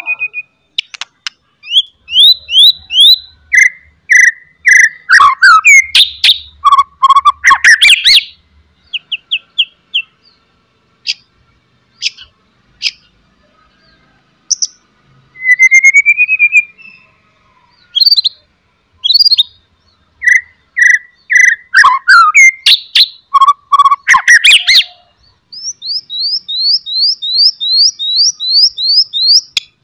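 A white-rumped shama sings loud, sharp whistled phrases mixed with loud rattling chatter. Song bursts come early and again in the second half, with only scattered notes and one rising whistle in between. Near the end comes a fast run of about a dozen repeated sweeping notes.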